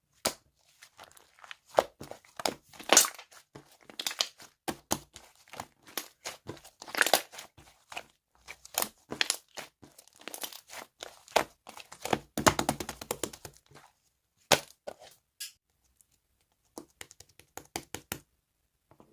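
Slime being kneaded and stretched by hand, giving irregular crackles and popping clicks; the sounds stop near the end.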